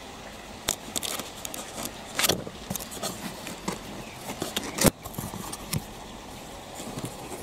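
A cardboard box being opened by hand: the tuck-in flap is pulled free and the lid flaps are folded back, giving a run of scrapes, crinkles and sharp snaps. The loudest snap comes just before the box falls open, about five seconds in.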